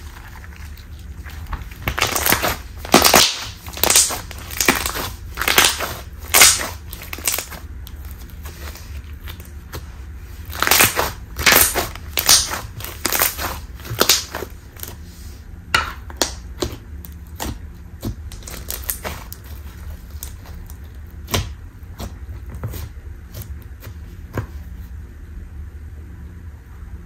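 Glossy blue slime with small beads being stretched, folded and squeezed by hand, giving crackling and clicking snaps that come thickly in two spells and then grow sparse.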